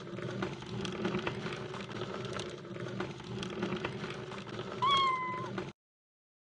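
A single cat meow about five seconds in, one short call that dips slightly in pitch, over a steady low hum with faint clicks.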